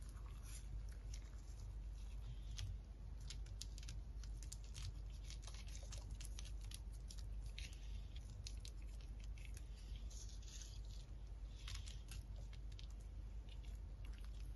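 Chopped nuts and dried red berries sprinkled by hand onto a pan of soft raw herb frittata mixture: scattered light ticks and patter as the pieces land, over a faint low hum.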